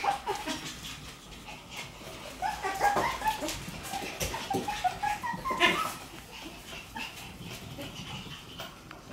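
Shiba Inu puppies whining and yipping as they play, a run of short high calls in the middle, with scattered sharp clicks.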